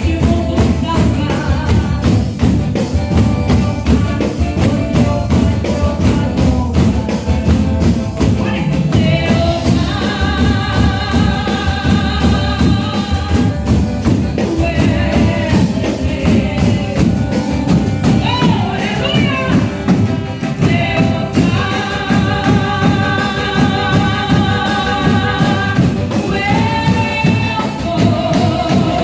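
Gospel worship music: a band with tambourine and singing.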